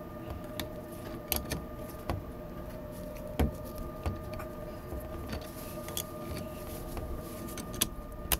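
Scattered metal clinks and knocks as a valve body, its flange and bolts are handled and fitted together, over a steady mechanical hum.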